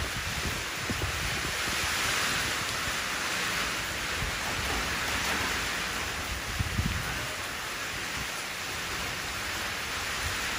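Steady rain falling into a shallow puddle, a dense even hiss of small splashes. A brief low thump comes about seven seconds in.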